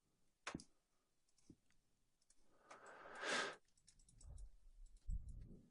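A few scattered computer mouse clicks, very quiet, with a soft rushing sound about three seconds in.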